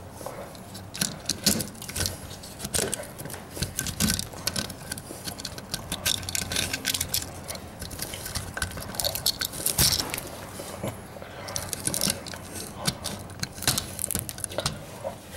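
Irregular clicks, small rattles and rubbing from handling a fire-scorched wall outlet and its charred wires, with the outlet's loose parts clattering as it is turned in the hand.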